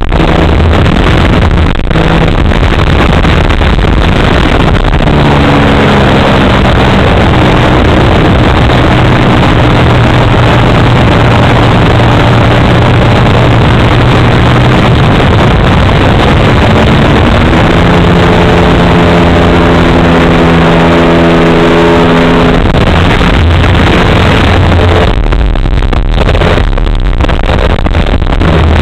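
A 3W two-stroke gasoline engine runs in flight on a large-scale RC aerobatic plane, heard through heavy wind rush on the onboard microphone. Its pitch steps up and down a few times with the throttle.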